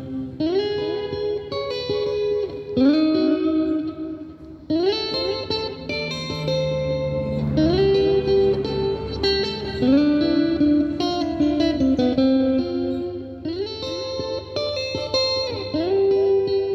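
PRS-style custom electric guitar played through an effects pedal: a lead line of sustained notes with repeated string bends that rise, hold and fall back.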